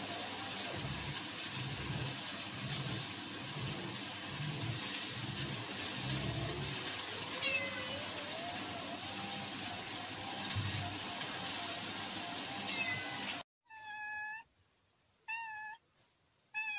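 Domestic cat meowing: a few faint, drawn-out meows over a steady hiss and low thumps, then three clear, short meows about a second apart near the end.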